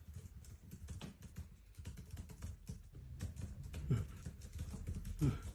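Faint, irregular light clicks and taps, with two short low sliding sounds in the second half.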